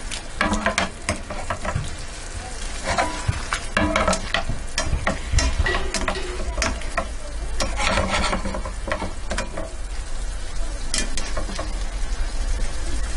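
Asparagus and other vegetables sizzling in a stainless steel frying pan while a slotted spatula tosses and stirs them, with many irregular scrapes and knocks of the spatula against the pan.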